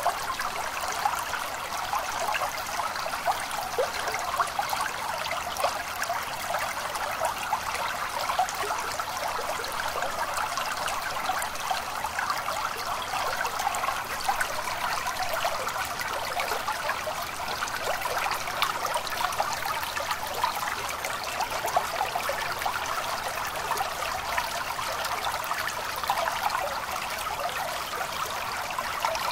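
Small stream trickling and babbling steadily, a constant rush of water with many quick little splashes.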